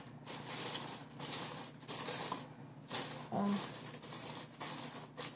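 Folded paper origami models rustling and crinkling in irregular bursts as they are handled and searched through, with a brief soft vocal murmur about three and a half seconds in.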